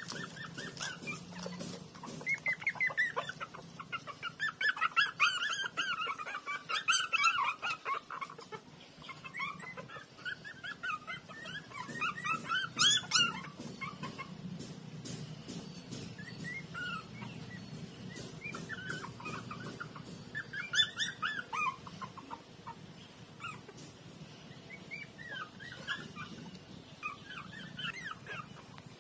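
A litter of young puppies squealing and whining, many short high-pitched squeaks overlapping in busy clusters, with quieter stretches between them and scattered clicks.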